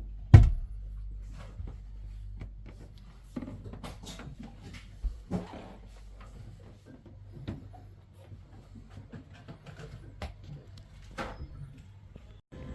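A sharp knock about a third of a second in, the loudest sound, then scattered lighter knocks and clicks over a low hum that fades after about two seconds.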